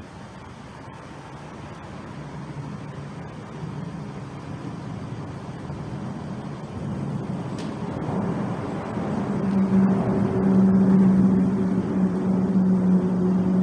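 An engine drawing steadily closer, growing louder throughout, with a steady low hum that becomes strong in the last few seconds.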